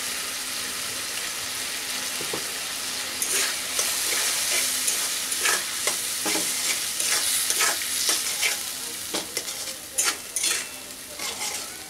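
Spice paste sizzling in oil in a metal kadai while a metal spatula stirs and scrapes through it. The scraping strokes come irregularly from about three seconds in over a steady sizzle, as the masala is fried down.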